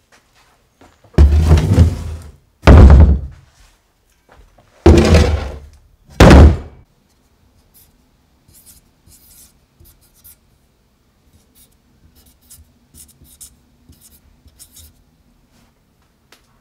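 Flat bars of 1084 and 15N20 steel set down hard on a wooden workbench: four loud heavy thuds in the first seven seconds, each dying away quickly. After that, faint short scratching strokes of a marker writing on the steel.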